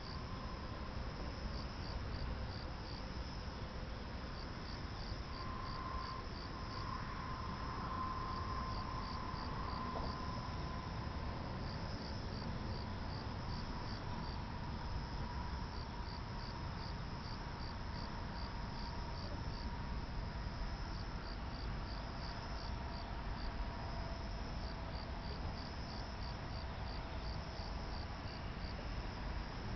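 Crickets chirping in repeated short pulsed trills, high-pitched, over a steady low noise.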